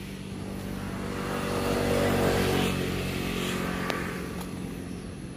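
A motor vehicle passing on the road close by. Its engine and tyre noise swell to a peak about two seconds in and then fade away. There is a sharp tick near the end.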